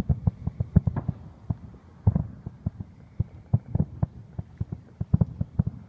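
Fireworks going off: rapid, irregular pops and thumps, several a second, with no steady rhythm.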